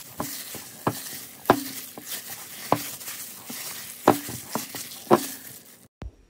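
Gloved hand kneading and squeezing a wet ground-beef mixture in a glass bowl: irregular squelchy slaps about every half second, some with a short low ring from the bowl. It stops shortly before the end.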